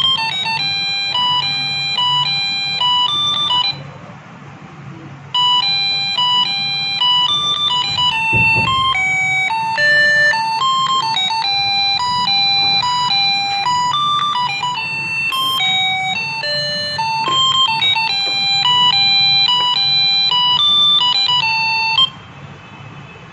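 UM66 melody IC doorbell circuit playing its built-in tune through an 8-ohm loudspeaker, a string of short electronic beeping notes. The tune cuts off a few seconds in, starts again about two seconds later, and stops shortly before the end.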